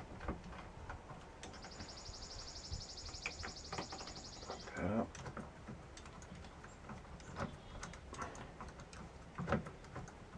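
Irregular light clicks and scrapes of a screwdriver working the wire terminal screws of a solar charge controller, with the wires being handled. A high, rapid trill sounds for about three seconds from a second and a half in.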